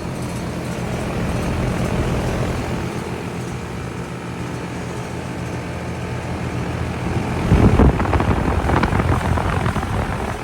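American Standard Heritage 13 outdoor condensing unit running just after starting: a steady compressor hum under the rushing of the condenser fan. About seven and a half seconds in, a louder rushing rumble lasts about a second.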